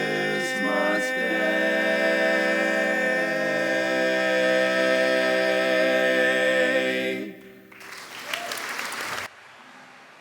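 Barbershop chorus singing a cappella in close harmony, holding a final sustained chord for about seven seconds before cutting off together. Brief applause follows, then stops abruptly.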